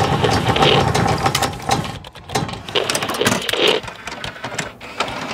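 Sound effects for an animated logo: a dense run of mechanical clicking and ratcheting, like gears turning.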